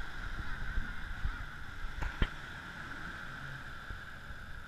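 Outdoor ambience with wind rumbling on the microphone over a steady high hiss, and two sharp knocks about two seconds in.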